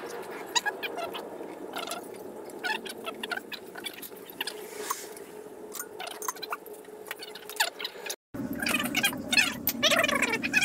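Hand tools (a spanner, then a ratchet) clinking and clicking against the carburettor and manifold nuts as they are undone, a stage in stripping the engine for cylinder head removal. The metallic clicks are scattered and light, with a short break a little after eight seconds and a busier run of clicks after it.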